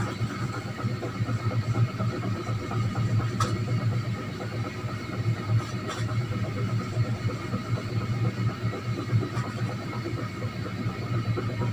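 A whiteboard being wiped clean with an eraser: repeated rubbing strokes over a steady low hum, with a couple of light clicks.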